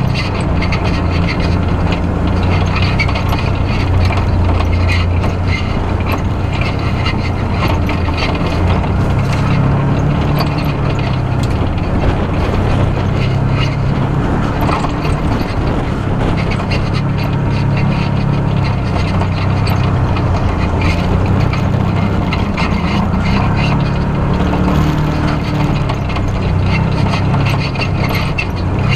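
Off-road side-by-side's engine running under load along a rough dirt trail, its pitch rising and falling with the throttle, with frequent rattles and knocks from the vehicle jolting over bumps.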